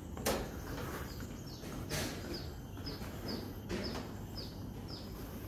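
Footsteps on an elevated walkway, a heavier footfall about every one and a half to two seconds, over steady outdoor background noise. From about a second and a half in, a bird repeats a short, high, falling note two to three times a second.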